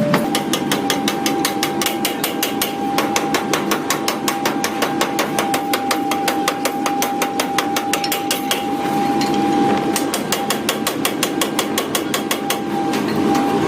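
Power hammer striking metal in a fast, even run of blows, several a second, pausing briefly twice, over a steady high whine.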